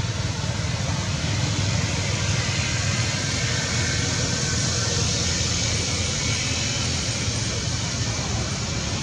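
Steady outdoor background noise: a low rumble under an even hiss, with no single event standing out.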